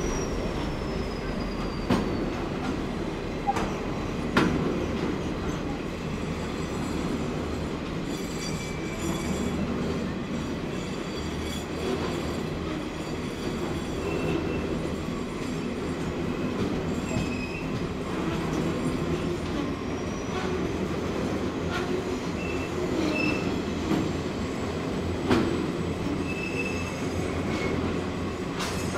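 A train running on the track with a steady rumble, a few sharp clacks, and several brief, high wheel squeals.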